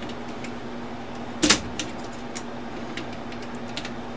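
One sharp knock of metal parts about one and a half seconds in, with a few light clicks after it, as the carriage of an Underwood typewriter is worked onto its hooks on the frame. A steady hum runs underneath.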